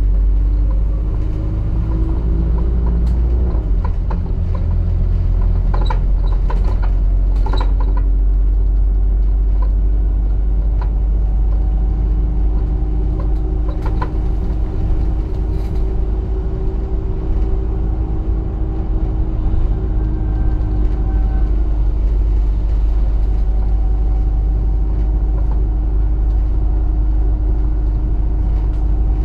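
ADL Enviro400 double-decker bus under way: a deep engine rumble with a whine that climbs and drops through a gear change in the first few seconds, then rises slowly and holds steady. A few short rattles sound around a quarter of the way in and again near the middle.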